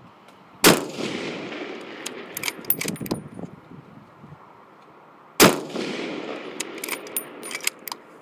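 Two shots from an Accuracy International bolt-action rifle in 7.62 mm, about five seconds apart, each followed by an echo that dies away over a second or two. After each shot come several sharp metallic clicks as the bolt is worked to eject the spent case and chamber the next round.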